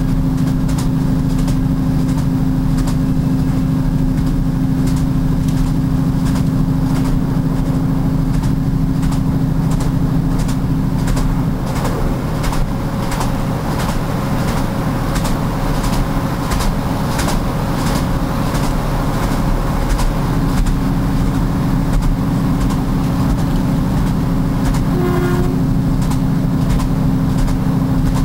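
A train running on jointed rail track: a steady low rumble and hum, with repeated clicks as the wheels cross the rail joints. The clicks come thickest in the middle stretch. A brief pitched tone sounds near the end.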